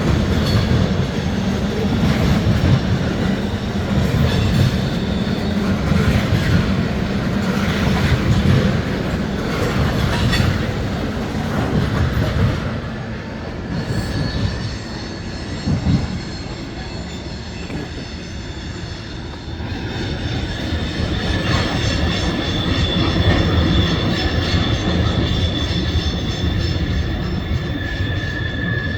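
Freight cars of a long CSX train rolling past: a steady low rumble with wheels knocking over rail joints, and from about halfway on a steady high-pitched wheel squeal.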